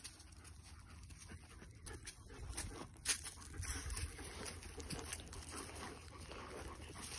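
A German Shepherd close by, panting faintly and shuffling and rolling on dry grass and leaves, with small irregular rustles and one sharper click about three seconds in.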